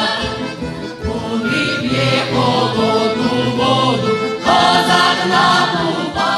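Ukrainian folk-song ensemble of women's and men's voices singing in harmony as a choir, with accordion accompaniment.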